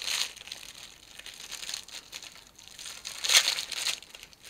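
Clear plastic wrapping crinkling as hands handle it and pull it off a mini tripod. The crackling comes in irregular rustles, and the loudest comes a little after three seconds in.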